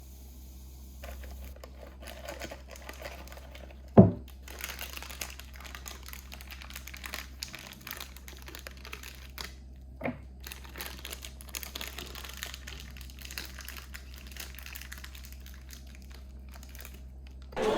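Toy packaging crinkling and rustling as it is handled, with small clicks. Two brief louder thumps come about four and ten seconds in.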